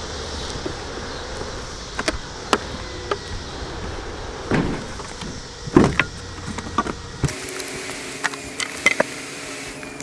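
Wooden honey supers knocking and bumping as they are carried and set down on a stack in a utility trailer: a few scattered knocks, with two louder thuds near the middle, over a steady hiss that drops away about seven seconds in.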